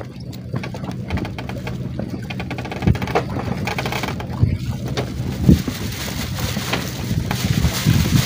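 A motor hums steadily and low under wind noise and water, with a few dull knocks: one about three seconds in, a louder one about five and a half seconds in, and another at the end.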